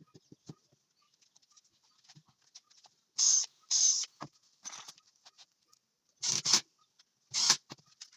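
Hand tool scraping across pine wood in five short strokes, the first two close together and the last two a second apart, with faint clicks and light knocks between.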